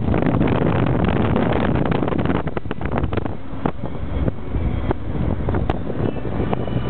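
Car driving along a road heard from inside, a steady rush of wind and tyre noise with irregular wind buffeting on the microphone.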